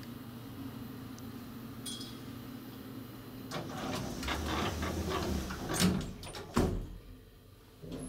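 An elevator car's sliding doors running closed for about three seconds, with many small clicks, and shutting with a sharp thump. A steady low hum comes before them.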